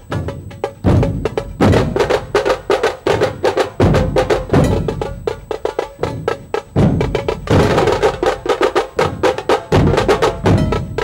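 Dhol-tasha drumming: a fast, dense roll of sharp tasha strokes over deep dhol beats that land about once a second.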